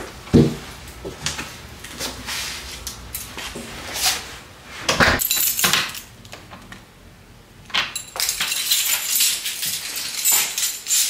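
Clicks and knocks from a front door's metal lever handle and latch as the door is worked open, followed by keys jangling in a dense clatter for the last few seconds.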